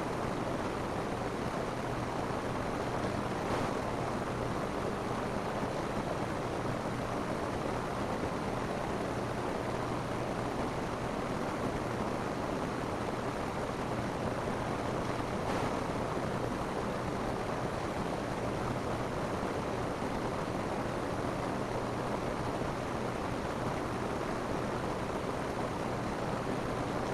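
Steady rain falling on a roof: an even, dense hiss of drops that does not let up, with a slightly sharper hit now and then.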